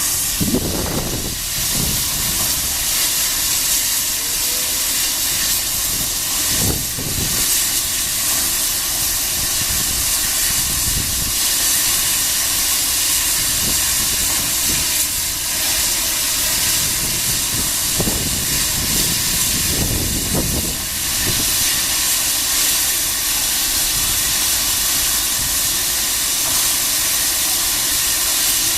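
P36 steam locomotive hissing steam loudly and steadily, with a few deeper low surges along the way.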